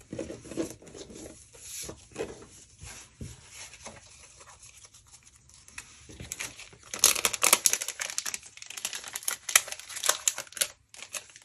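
Plastic packaging crinkling as it is handled: soft rustling at first, then a dense run of loud crackles starting about six and a half seconds in.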